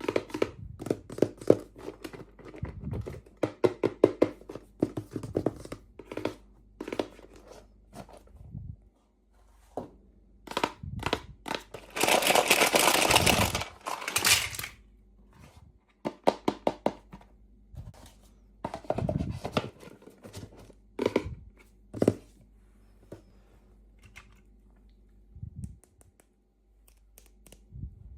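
Hands unboxing small plastic toys: many quick clicks and taps of plastic pieces and packaging. About twelve seconds in, a wrapper or package is torn open and crinkled for a couple of seconds, the loudest sound here.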